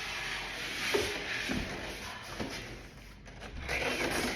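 Rustling of packaging as a boxed collectible figure is unpacked, with a few light knocks of handling in the first half and denser rustling near the end.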